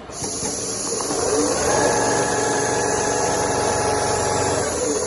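CNC leather sewing machine running a stitching cycle: its whine rises from about half a second in, holds steady at speed, and falls away near the end, over a steady high hiss.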